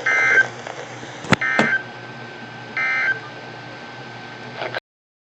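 NOAA Weather Radio SAME digital data tones: three short, raspy bursts about a second apart, their brevity fitting the end-of-message code that closes an alert. Two sharp clicks fall between the first and second bursts.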